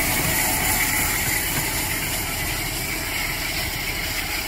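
Bulleid Battle of Britain class steam locomotive 34081 and its train running along the track, a steady rumble that slowly fades as the train draws away.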